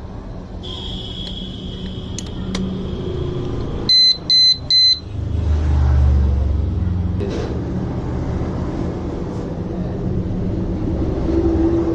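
Disc-lock alarm's piezo beeper giving three short, sharp high-pitched chirps in quick succession, about four seconds in. After them a low vehicle engine rumble builds and keeps running.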